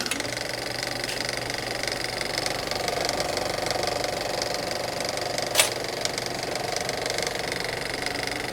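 A machine's motor running steadily with a fast rattle of clicks, and one sharp click about five and a half seconds in.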